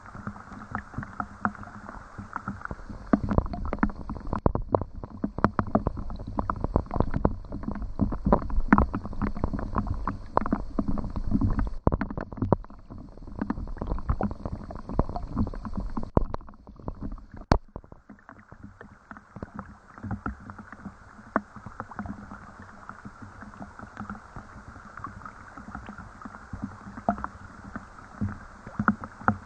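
Rain falling, heard as a dense scatter of separate drops striking close by in quick irregular ticks. It is heaviest through the first half and eases noticeably about two-thirds of the way through.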